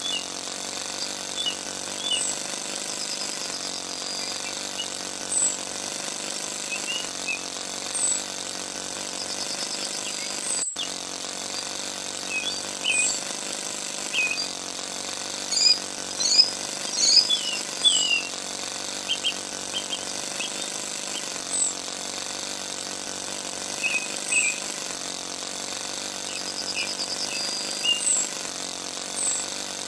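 Small electric motor of a homemade miniature chaff cutter running with a steady buzz, driving the cutter as it chops green grass. Birds chirp on and off throughout.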